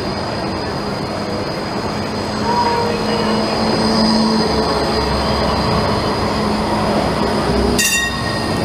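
Articulated tram passing close by: steady rumble of steel wheels on the rails with a high, steady wheel squeal, getting louder about two and a half seconds in as the tram comes alongside. Near the end a short ringing tone sounds.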